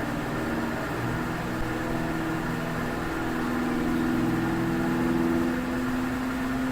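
An engine running steadily, its pitch drifting slightly up and down.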